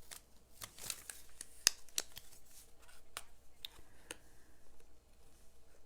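Paper and cardstock pieces being handled: irregular small clicks and soft rustles, with one sharper tap a little under two seconds in.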